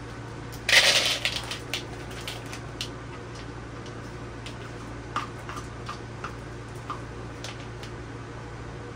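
Semi-sweet chocolate chips poured from a bag into a measuring cup: a short rattling rush about a second in that trails off into scattered clicks. A few sparse light clicks follow as the chips are scraped from the cup into a plastic bowl with a spoon, over a steady low hum.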